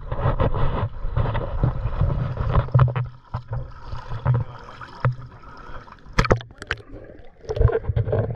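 Shallow seawater sloshing and splashing over an action camera's waterproof housing as it is dipped in and out of the surface, with muffled gurgling while it is under. A few sharp splashes come late.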